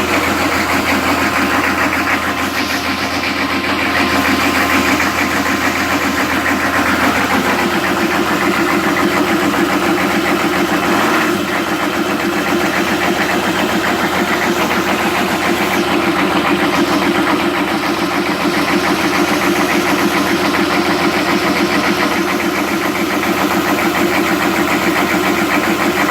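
1998 Chevrolet 6.5 L turbo-diesel V8 idling extremely rough, a steady uneven clatter with no change in speed.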